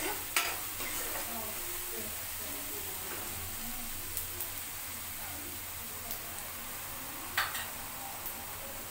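Chopped onions frying in hot oil in a kadai, sizzling steadily while a spatula stirs and scrapes them, with two sharp clacks of the spatula, one just after the start and one near the end.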